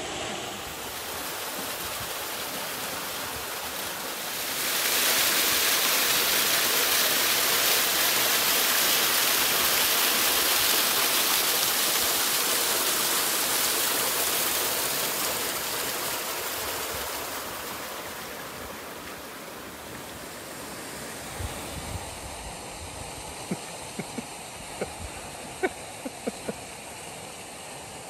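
Waterfall with a good flow of water pouring over a rock lip, a steady rushing hiss. It grows louder about four seconds in, then fades away over the second half, and a few faint clicks sound near the end.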